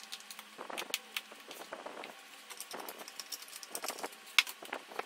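Staples being pried out of a chair's plastic seat pan to strip its fabric cover: irregular small metal clicks and scrapes, with one sharper click near the end.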